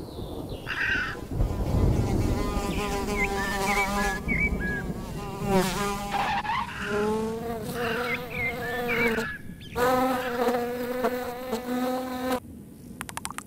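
Cartoon housefly buzzing in flight, a steady hum whose pitch dips and rises as it swoops about. The buzz cuts off about a second before the end, and a quick run of clicks follows.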